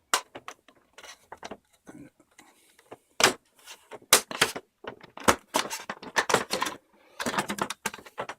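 Clipped-on plastic cover being pried off a computer case: a string of sharp plastic clicks and snaps as its clips let go, sparse at first and more frequent and louder from about halfway, with a burst of clattering near the end.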